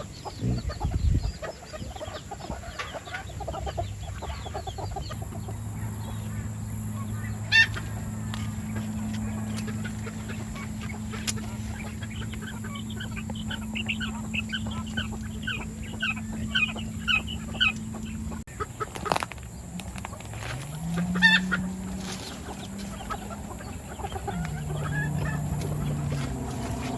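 Chickens clucking, with a rooster crowing; near the middle there is a run of quick, evenly repeated calls.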